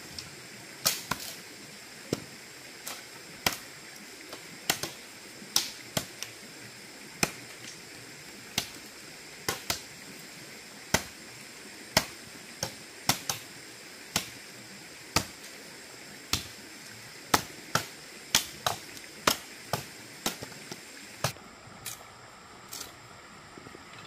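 A series of sharp knocks or strikes, roughly one a second and irregularly spaced, over a steady high-pitched hiss.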